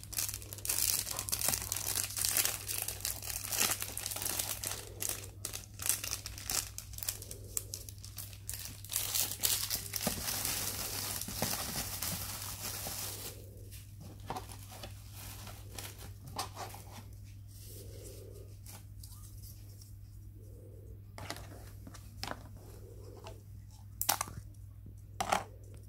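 Clear plastic wrapper being crinkled and torn open by hand, dense crackling for about the first half. After that it goes quieter, with a few scattered clicks and taps.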